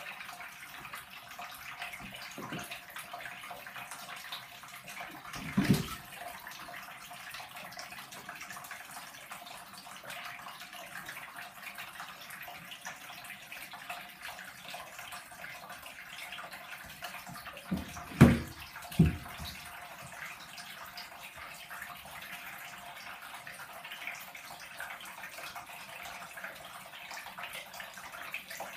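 Thin stream of water running from a bath tap into the tub, a steady splashing hiss. A few dull thumps break in: one about six seconds in and two close together around eighteen seconds in, the first of that pair the loudest.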